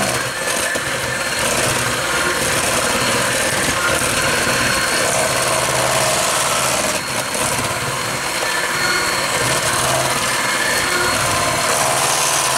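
Electric hand mixer running steadily at speed, its single beater churning thick pumpkin bread batter in a stainless steel bowl.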